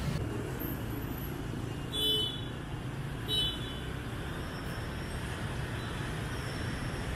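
Steady rumble of city street traffic, motorbikes and cars going by, with two short horn beeps about two seconds and three seconds in.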